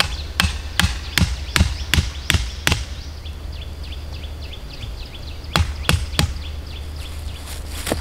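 Sharp chopping blows on wood, about two and a half a second: seven in a row, then after a pause of nearly three seconds three more, and a single blow at the end.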